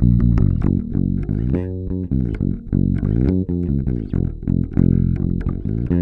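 Warwick Thumb Bolt-On five-string electric bass played fingerstyle, with both pickups on and bass and treble set at centre. It plays a continuous bassline of plucked notes, with a short click at the start of each pluck.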